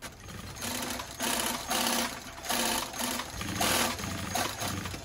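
Industrial sewing machines stitching fast in short bursts, the motor starting and stopping about once a second.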